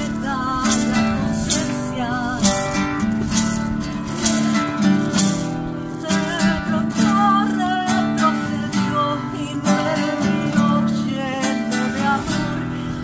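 Acoustic guitar strummed in a steady rhythm, playing a medicine song.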